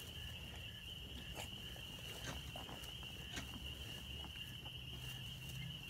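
Steady high-pitched insect trill throughout, with faint rustling and a few light clicks as a newborn piglet is handled in a towel on hay.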